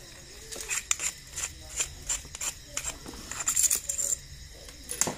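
Light metallic clicks and clinks from a motorcycle racing carburetor being handled and taken apart, with a quicker jangle of metal parts about three and a half seconds in.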